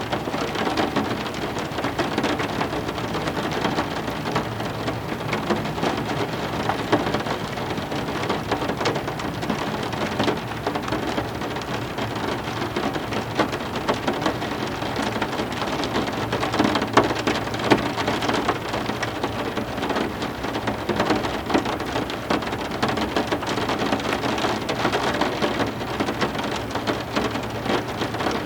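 Steady rain falling, with a dense patter of individual drops close by.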